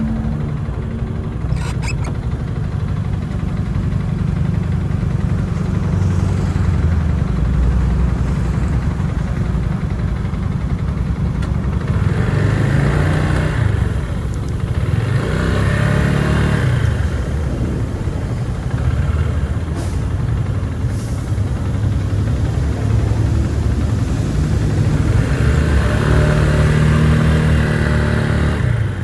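Engine and road noise from a vehicle driving on wet streets, a steady low rumble that swells and fades a few times, around the middle and again near the end, as the engine revs up or other traffic passes.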